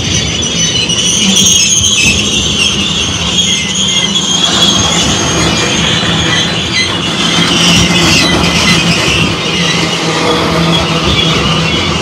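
Freight train of tank cars rolling past close by: the steel wheels rumble steadily on the rails with a continuous high-pitched wheel squeal over it.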